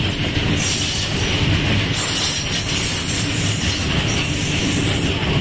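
Empty BCNHL open freight wagons rolling past on the rails: the wheels rumble and clatter steadily, with a high wheel squeal running underneath.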